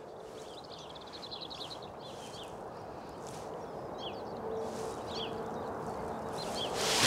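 Small birds singing: a quick high trill about a second in, then several short falling chirps scattered through, over a steady outdoor background hiss.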